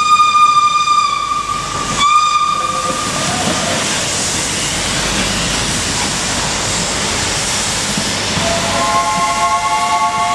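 Steam locomotive whistle blowing a long steady blast that cuts off and is blown again briefly about two seconds in. A steady hiss follows as the train's coaches pass close by. Near the end a lower horn of several tones starts and holds.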